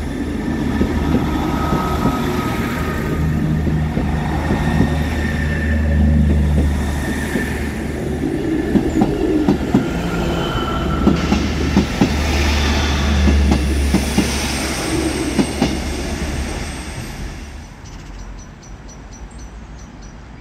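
A train passing at close range, a heavy rumble with its wheels clicking over rail joints. It fades away after about seventeen seconds.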